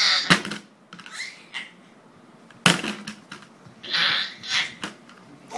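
Sharp slapping knocks, two of them a little over two seconds apart, with short breathy bursts of children's voices between them.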